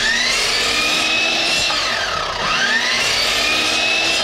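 Ridgid miter saw running with a high motor whine. Its pitch dips and recovers about two and a half seconds in, as when the blade takes a test cut through a piece of wood trim.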